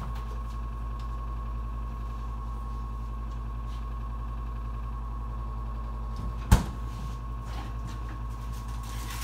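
Steady low hum with a faint, steady high tone, and one sharp thump about six and a half seconds in.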